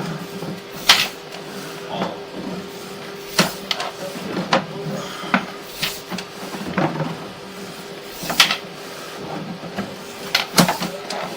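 Irregular sharp clicks and knocks, roughly one every second or so, over a steady hum.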